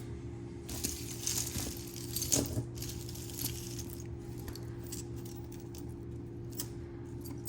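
Metal bangles and other costume jewelry clinking and jingling as they are handled and sorted, busiest in the first few seconds and then sparser, over a steady low hum.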